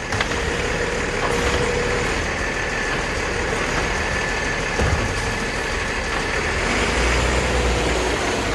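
Engine of a 2022 Autocar automated side-loader garbage truck running steadily, with a faint steady whine over it and one dull thump about five seconds in.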